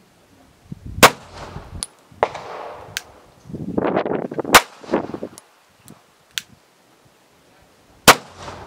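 Shots from a 9mm Sig Sauer P365 pistol, fired one at a time a few seconds apart. The loudest shots come about a second in and near the end, with fainter sharp cracks in between.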